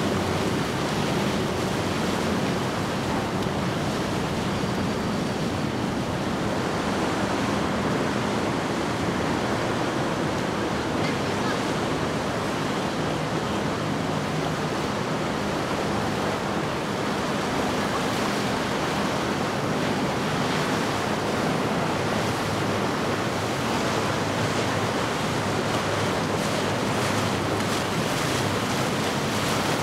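Wind and the rush of water from boat wakes, with a faint, steady drone of outboard motors running past that is clearest in the first several seconds.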